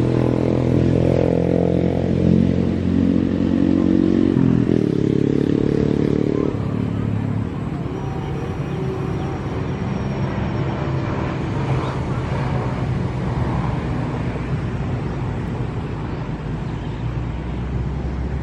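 Motor of an RC model seaplane running hard, with a couple of steps in pitch, then dropping away about seven seconds in and going on faint and distant as the model flies off into the sky.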